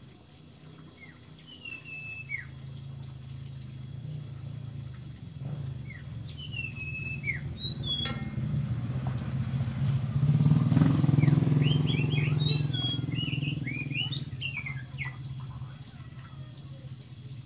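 A motor vehicle passing by, its engine hum growing louder to a peak a little past the middle and then fading away. Birds chirp throughout in short, high, downward-sliding calls, with a quick flurry of chirps just after the loudest point.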